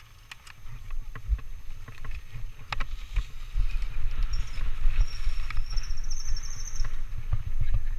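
Wind buffeting a mountain bike action camera's microphone as it rides down a leaf-covered dirt trail, getting louder over the first few seconds as speed builds, with frequent clicks and rattles from the bike over bumps. A faint high squeal sounds in the middle.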